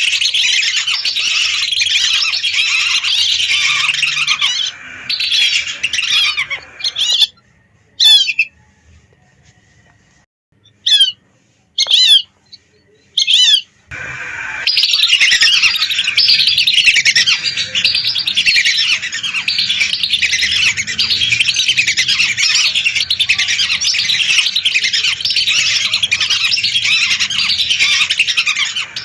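A large flock of lesser whistling ducks calling together, a dense chorus of high whistles. About seven seconds in the chorus breaks off, leaving a few single whistles, and the full chorus comes back about halfway through.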